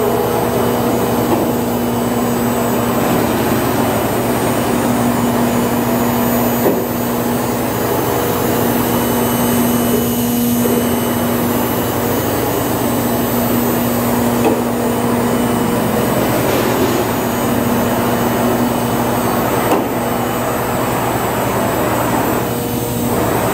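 Thermwood CNC router running under power: a loud, steady machine noise with a hum that breaks off and returns several times, and a few light knocks.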